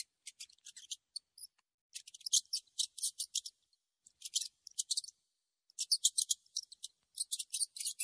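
Rats squeaking: scattered faint high ticks in the first second and a half, then four bursts of rapid, high-pitched squeaks, each about a second long, with short pauses between.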